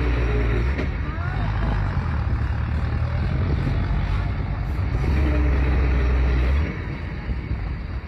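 Diesel engine of a Hyundai cab-over dump truck running hard under heavy load in deep mud, with a steady low drone. The engine eases off about two-thirds of the way through.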